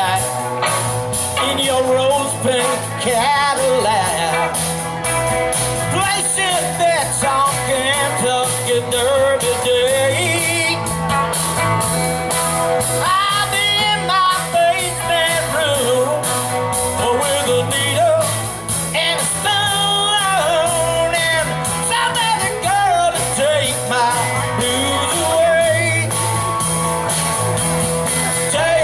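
Live band playing a country-rock song with a steady beat, a voice singing or shouting over the guitars and drums.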